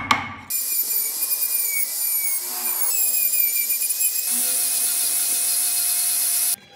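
A chisel knocks sharply into the wood at the very start. Then a handheld rotary tool (Dremel-type) grinds the wood with a high whine that wavers in pitch. From about four seconds in, an angle grinder fitted with a sanding disc runs steadily as it sands the carved wood, cutting off abruptly near the end.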